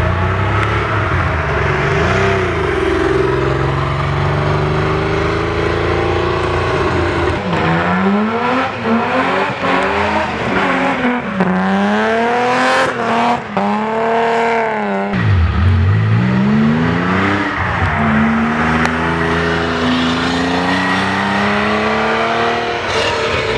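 Rally car engine driven hard on a stage, its pitch climbing in repeated sweeps through upshifts, peaking high, dropping sharply about two-thirds of the way through, then climbing again as it accelerates away.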